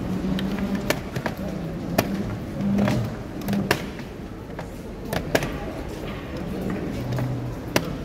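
Wooden chess pieces clacking onto a board and chess clock buttons being pressed in quick blitz play: a series of sharp clicks, the loudest a second or two apart, over a low murmur of voices.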